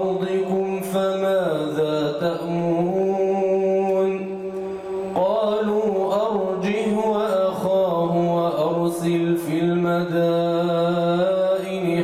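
A male imam reciting the Quran in slow, melodic tajweed chant. He holds long notes that slide between pitches, and takes a short pause a little over four seconds in before starting a new phrase.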